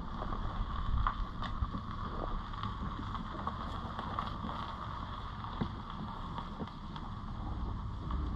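Kubota KX71 mini excavator's diesel engine running steadily, with scattered light clicks and knocks.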